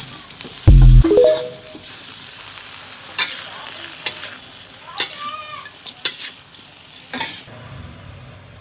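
Food frying in a pan, stirred with a utensil that clicks and scrapes against the pan about once a second. A loud thump comes just under a second in, followed by a burst of sizzling that dies down.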